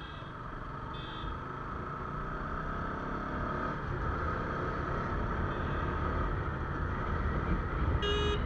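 Motorcycle engine running and wind rushing past, picked up by the action camera's built-in mic on the moving bike, growing gradually louder as it gathers speed. Short high-pitched beeps sound at the start and about a second later, and a louder one comes near the end.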